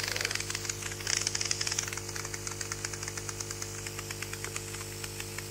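Aquarium air pump humming steadily while it drives a mist coolant spray nozzle. The nozzle hisses and sputters in rapid ticks, strongest in the first couple of seconds and fading after. The air pressure and velocity are too low, so it drips rather than forming a fine mist.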